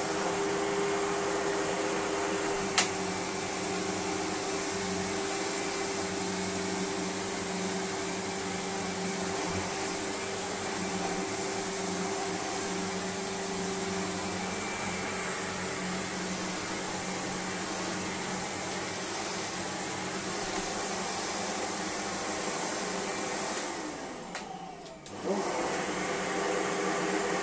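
A Sebo Automatic X1 upright vacuum cleaner runs steadily while it is pushed over a rug, with a single sharp click a little under three seconds in. About 24 seconds in, its motor note sinks away and then winds back up.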